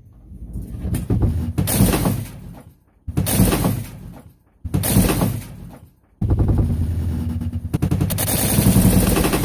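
Cheap wheeled chair rattling as it is rolled: a loud, rapid clatter in three short bursts, then a longer run from about six seconds in.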